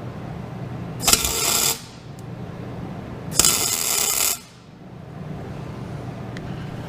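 Two short tack welds: the welding arc strikes with a snap and crackles for under a second, then again for about a second, tacking a square steel tube in place. A steady low hum runs underneath.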